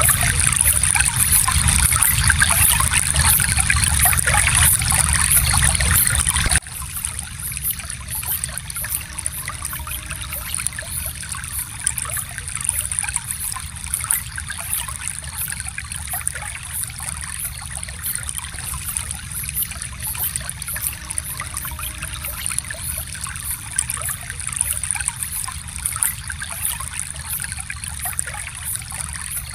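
Water of a small stream trickling and flowing over stones. It is fuller and louder for the first six seconds or so, then drops suddenly to a quieter trickle.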